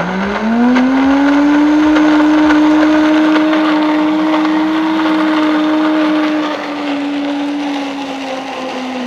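High-speed blender motor spinning up and then running steadily, blending fresh corn kernels with water into batter. Its pitch rises at the start, holds, and drops slightly about six and a half seconds in.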